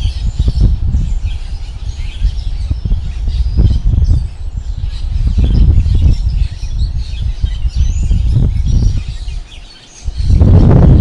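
Strong gusty wind buffeting the microphone, low and rising and falling, with faint bird chirps above it. The wind eases briefly near the end, then a loud gust hits.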